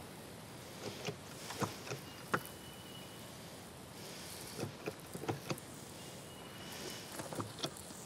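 Backpack pump sprayer misting green wood end sealer onto board ends: a faint thin hiss twice, each for about a second, with scattered light clicks and crunches, over a steady low background noise.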